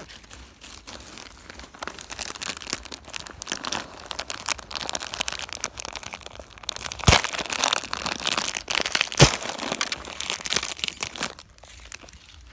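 Hands rummaging in a fabric backpack: a dense run of rustling handling noise, with two sharp knocks about seven and nine seconds in.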